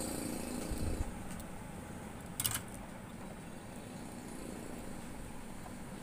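Steady background hum, with a few low thumps about a second in and one short sharp click about two and a half seconds in.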